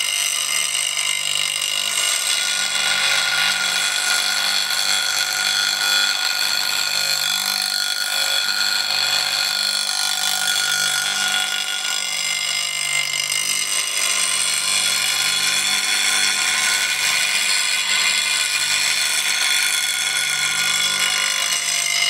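Record Power RSBG8 bench grinder running while a steel bowl gouge is ground freehand on its coarse 60-grit grey wheel: a steady, unbroken grinding of steel on the stone with a high whine, as the bevel is sharpened.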